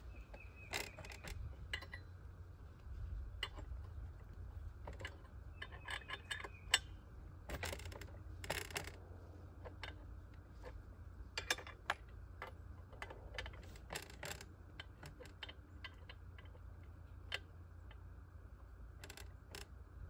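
Scattered light metallic clicks and taps as an Alaskan chainsaw mill's clamp is fitted to the chainsaw bar and its bolts are worked with the chainsaw's bar wrench, over a steady low rumble.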